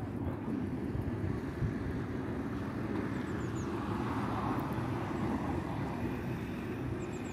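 Outdoor background noise: a steady, flickering low rumble with a broad swell about four seconds in, and a few faint, short, high chirps of small birds.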